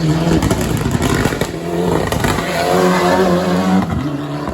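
Rally car engine accelerating hard at full throttle, its revs climbing steadily, then falling away sharply near the end as the driver lifts or shifts.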